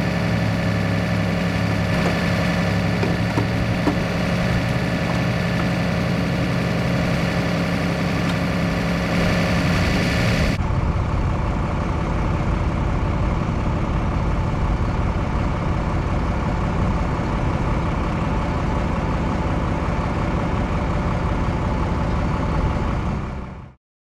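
An engine running steadily at idle. About ten seconds in, the sound turns duller and loses its hiss, then it cuts off abruptly near the end.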